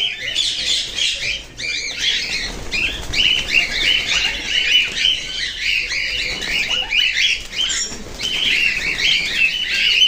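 Many parrots and parakeets in an aviary squawking and chattering at once: a dense, continuous chorus of short, high-pitched calls overlapping one another.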